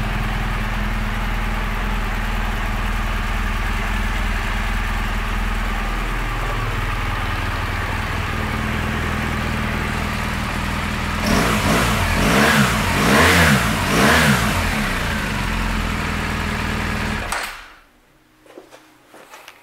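2016 BMW R1200GS's liquid-cooled boxer twin idling steadily, then revved in a few quick blips from about eleven to fifteen seconds in and settling back to idle. The engine is switched off about two seconds before the end and the sound cuts out.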